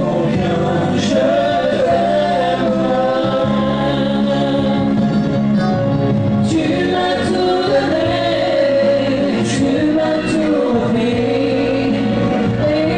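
A live dance band plays a slow number through a PA: a woman sings lead with backing voices over electronic keyboard and sustained bass notes.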